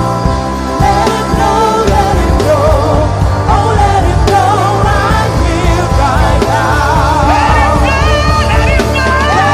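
Gospel worship music: singing with wavering held notes over a steady bass.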